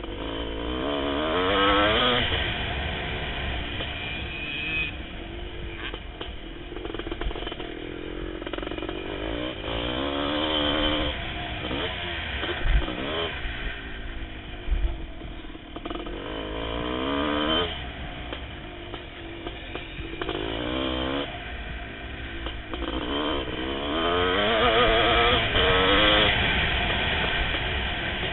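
A 1988 Kawasaki KX500's single-cylinder two-stroke engine, heard from on board the bike, with wind on the microphone. Over and over, its pitch climbs under hard acceleration and then drops back. There are a couple of short knocks about halfway through.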